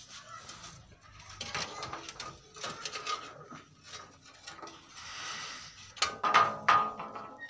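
Handling noise against plaster cornice moldings: a hand rubbing and knocking on the gypsum, with scattered clicks and scrapes. A louder clatter comes about six seconds in.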